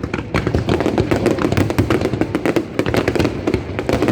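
Aerial fireworks going off in quick succession, a dense run of bangs and crackles.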